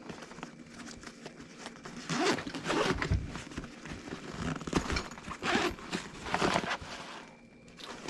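Zipper on the front pocket of a 5.11 Tactical Moab 6 nylon sling bag being pulled open in a few rasping strokes, with the fabric rustling as the pocket is handled.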